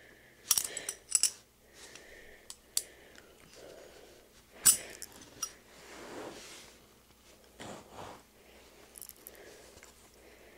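Bent metal nails of a nail puzzle clicking and clinking against each other as they are worked by hand, in scattered light clicks, with one sharper click about halfway through and soft handling rustle close to the microphone.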